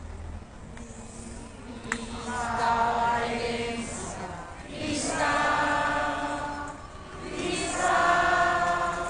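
A crowd singing together, in held phrases of two or three seconds with short breaks between them.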